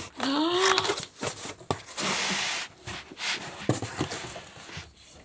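Unpacking a hard-shell flight case with a knife: a brief rising squeal near the start, then a few sharp clicks and a short stretch of scraping or tearing about two seconds in.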